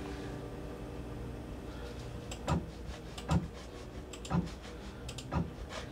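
Shapeoko 4 CNC router's Z-axis stepper motor jogging the bit down in small 0.01-inch steps while the bit is being zeroed: four short whirrs about a second apart, starting about two and a half seconds in, over a steady low hum.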